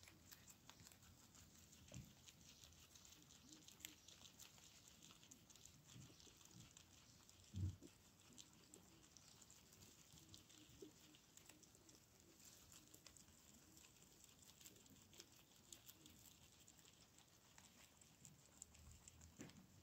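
Several guinea pigs chewing fresh leafy greens: faint, rapid, irregular crunching and nibbling clicks throughout, with one low thump about eight seconds in.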